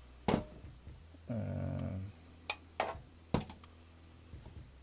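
Handling noise from metal power-supply housings being moved on a wooden tabletop: four sharp knocks and clunks, with a short low drone lasting under a second about a second and a half in.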